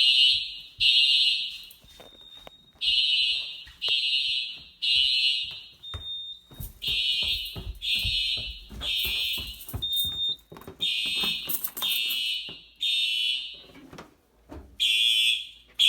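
Home fire alarm system in alarm, set off by a smoke detector test: the horns sound the temporal-three evacuation pattern, three short high blasts, then a pause, repeating. Soft thumps of footsteps fall between the blasts.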